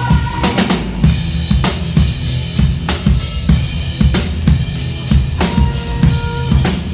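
A live band playing an instrumental passage, the drum kit to the fore: steady kick and snare hits with cymbals over held bass and guitar notes.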